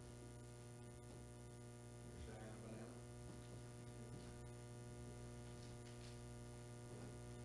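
Near silence with a steady low electrical mains hum. Faint voices murmur briefly about two seconds in.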